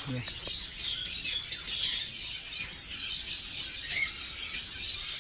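A flock of caged parakeets chattering and chirping continuously, with one sharp, loud call about four seconds in.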